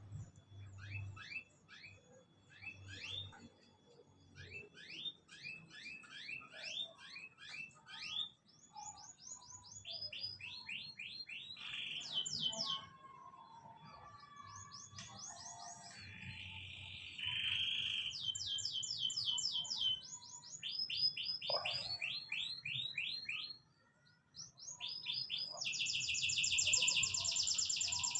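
Small birds chirping and trilling in quick runs of rapidly repeated high notes, with a louder, denser trill near the end.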